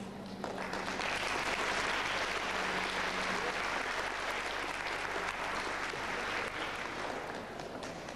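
Audience applauding, the clapping starting about half a second in and fading near the end.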